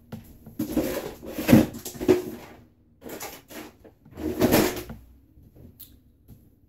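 Rummaging: things being moved about and knocked together in three loud, noisy bursts, the last ending about five seconds in.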